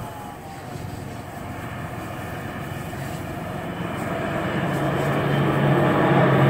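Large four-engine military transport aircraft flying low overhead, its engine noise growing louder through the second half. A low steady hum comes in near the end.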